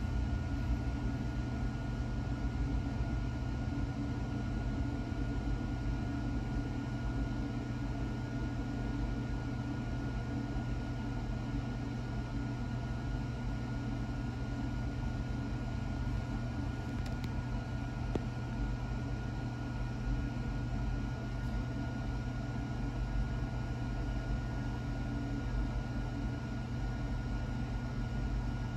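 Single-stack intermodal freight train rolling past, a steady low rumble with a faint steady high whine above it.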